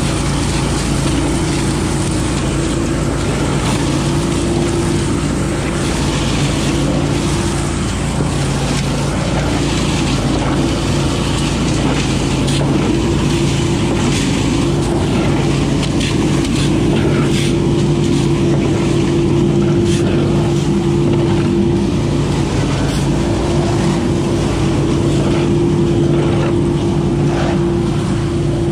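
A 20 hp Billy Goat leaf vacuum running steadily at full speed, its engine and impeller making a loud, even drone, with scattered clicks as leaves and debris are sucked up the intake hose.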